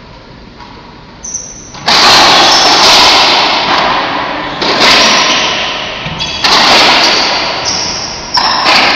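Racquetball rally: a run of loud, sharp ball strikes off racquets and court walls, each ringing on and fading slowly in the enclosed court. After a quiet start they come about every two seconds, with a double hit near the end.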